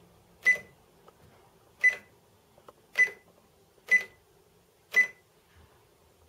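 Casio SE-S400 cash register beeping once for each key pressed as a department name is typed on its alpha keys: five short, high beeps about a second apart, each confirming a keystroke.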